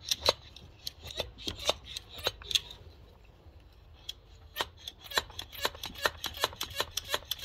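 Hand pump of a Pittsburgh cooling-system pressure tester being stroked, giving quick sharp clicks a few times a second. It pauses for about a second and a half midway, then starts again. The pump is pressurising the truck's cooling system through the reservoir adapter to look for a coolant leak.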